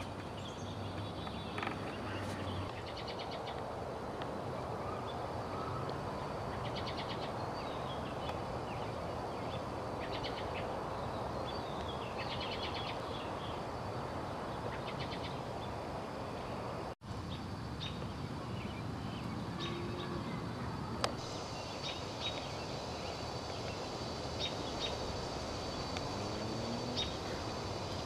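Outdoor ambience: small birds chirping and trilling now and then over a steady background hiss. The sound cuts out for an instant about two-thirds of the way through.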